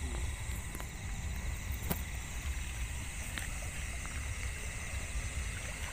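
Night chorus of crickets and other insects, a steady high-pitched trilling, over a constant low rumble. A couple of sharp clicks stand out, about two seconds in and again a little later.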